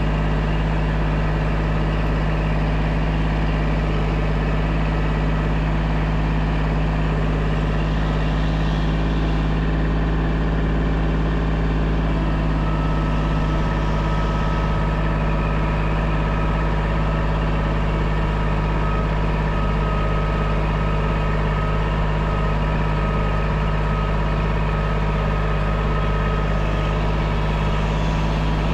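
Compact tractor's diesel engine running at a steady speed. A faint higher whine joins about halfway through.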